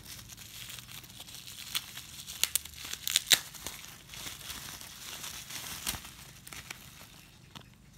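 Plastic bubble wrap being crinkled and pulled open by hand, with a few sharp crackles in the middle. The rustling fades out near the end.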